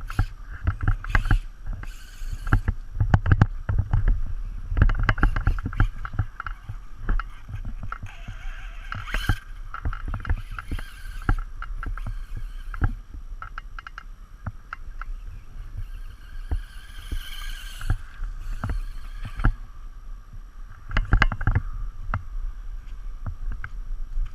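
Traxxas Slash 2WD RC truck with a 1900kv brushless motor driving, its motor and drivetrain whining in surges, with many sharp clicks and knocks over a constant low rumble.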